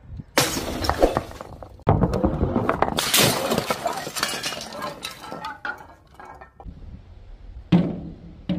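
Glass breaking as heavy balls are dropped onto an old CRT television screen: several loud crashes, with shards clinking and scattering after them. A sharp knock follows near the end.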